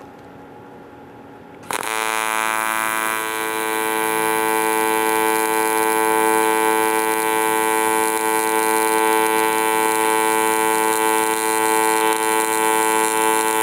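AC TIG welding arc on aluminum striking about two seconds in, then a steady loud buzz that grows a little louder over the next couple of seconds as the vertical-up weld is run.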